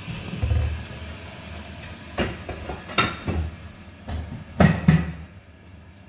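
Riello RDB oil burner running with a steady hum while the boiler's front casing panel is handled and fitted back on: a string of knocks and clatters, the loudest two in quick succession about four and a half seconds in.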